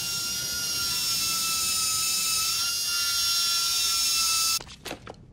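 Eerie high-pitched electronic drone from the TV soundtrack, a hiss layered with several held ringing tones. It cuts off suddenly about four and a half seconds in, followed by a few faint clicks.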